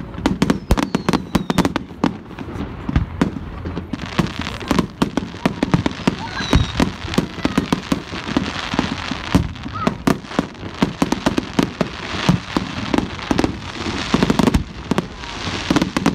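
Fireworks display: a rapid barrage of bangs from bursting aerial shells. From about four seconds in, a dense crackle and hiss joins them, and a short falling whistle is heard about a second in.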